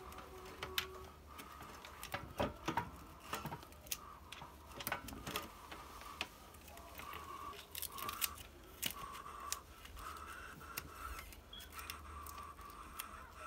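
Irregular small clicks and taps of hands and pliers working on the wiring and plastic housing of a halogen oven lid.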